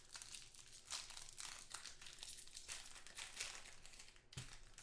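Trading-card packaging crinkling and rustling as hands handle it, with a sharp knock near the end.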